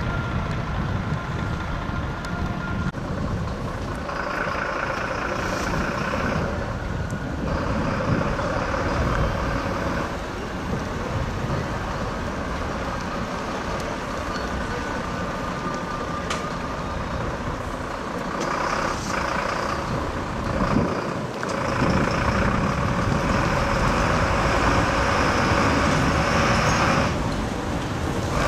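Heavy lorries with their engines running, with road traffic noise; the sound changes abruptly several times.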